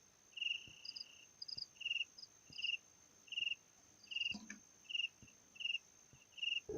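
Insect chirping, cricket-like: short high chirps at two pitches repeating evenly, about two a second.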